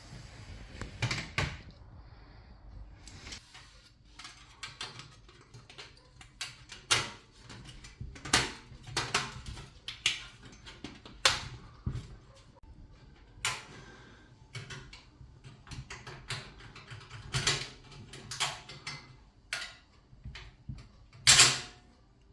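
Hands handling and fitting PC parts: irregular clicks, taps and short rubbing noises, with a sharper knock near the end.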